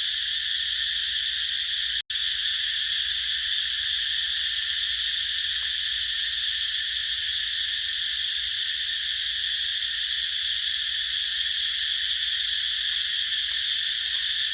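A chorus of cicadas buzzing: a dense, steady, high-pitched drone that cuts out for an instant about two seconds in.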